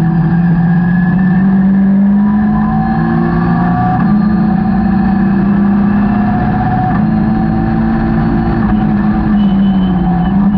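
Caterham 620R's supercharged four-cylinder engine pulling hard at high revs, heard from the open cockpit, with the pitch holding fairly steady and stepping up a little partway through, under heavy wind and road noise.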